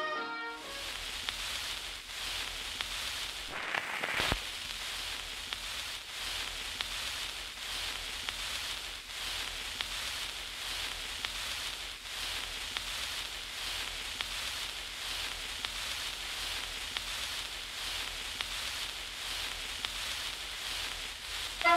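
Steady hiss with faint crackling ticks scattered through it, and a sharper crackle about four seconds in.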